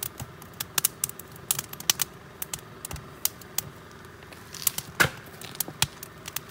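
Wood fire crackling in a metal fire pit: irregular sharp snaps and pops, several a second, the loudest about five seconds in.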